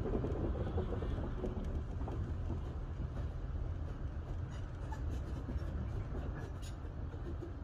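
Heritage railway passenger carriage rolling along the track: a steady low rumble of wheels on rail, with a few light clicks in the second half.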